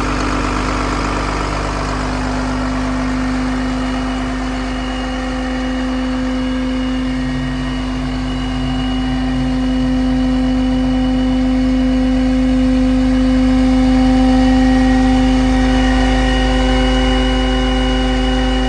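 Kenworth septic truck's diesel engine and its NVE Challenger Pro Pak vacuum blower running together: a steady mechanical drone with a strong, even hum, swelling slightly about two-thirds of the way in.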